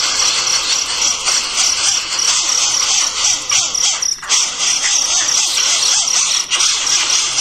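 Nestling birds begging for food: dense, continuous high chirping, with a rapid, even pulsing note riding over it.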